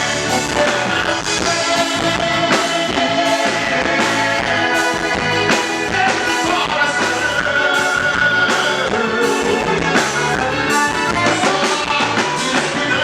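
Live band music: a romantic song's instrumental stretch, with melodic lines over a steady beat.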